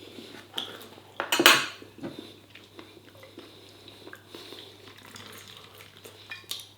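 Cutlery scraping and clinking against a dish as food is picked up, with the loudest clatter about a second and a half in and lighter scrapes and taps after it.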